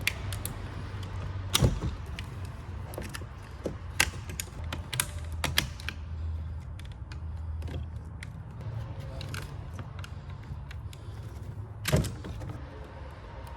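Scattered clicks and taps of a screwdriver and plastic parts as a vehicle door handle's clips and linkage rods are worked loose, with two louder knocks, one about a second and a half in and one near the end.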